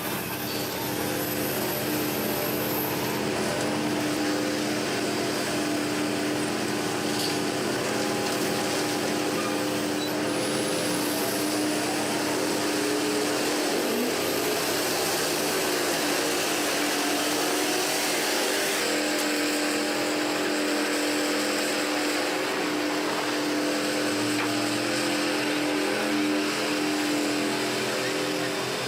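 Heavy machinery engine running steadily with a constant drone, its tone shifting a little about halfway through and again a few seconds later.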